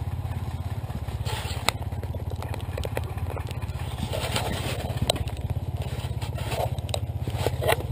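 Off-road motorcycle engine idling steadily close by, with scattered scrapes and knocks over it.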